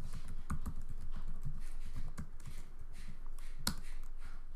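Typing on a computer keyboard: a quick run of key clicks, with one sharper, louder key press near the end.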